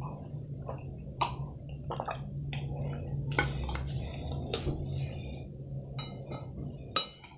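Close-miked drinking and eating sounds: a glass of water drunk from and set down, then a metal spoon clinking and scraping against a ceramic plate of fried noodles. The clicks come irregularly over a low steady hum, and a sharp clink near the end is the loudest.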